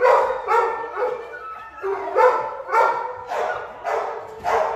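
A dog barking repeatedly, about two barks a second.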